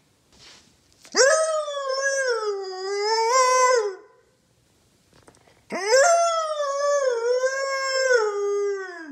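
Siberian husky howling: two long howls a couple of seconds apart. Each swoops up sharply at the start, then wavers up and down in pitch before trailing off.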